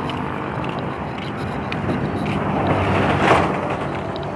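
Road traffic: a motor vehicle driving past, its engine and road noise swelling to a peak about three seconds in, then fading.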